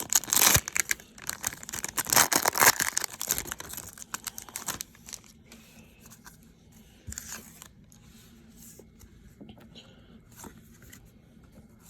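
A pack of baseball cards being torn open: the wrapper tears and crinkles loudly for the first few seconds, then lighter rustling and clicks as the cards are handled.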